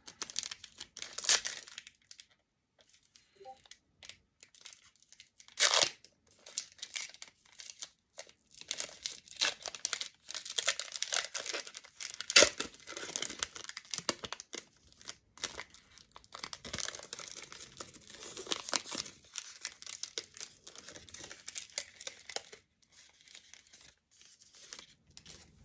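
Foil basketball card packs being torn open and crinkled by hand: stretches of crackling wrapper with a few sharp rips, the loudest about halfway through.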